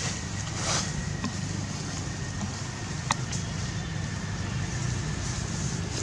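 Steady low rumble of outdoor background noise, with a faint high steady tone above it. A brief rustle comes under a second in and a sharp click about three seconds in.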